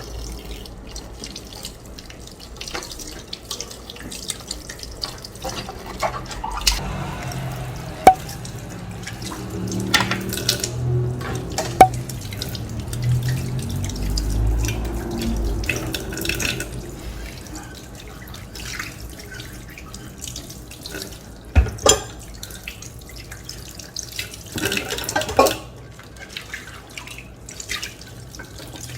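Kitchen sink tap running water, with several sharp knocks or clinks.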